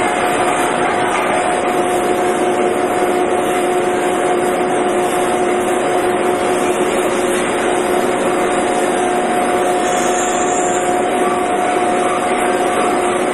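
Cable extrusion line machinery running steadily: an even mechanical noise with a constant two-note hum.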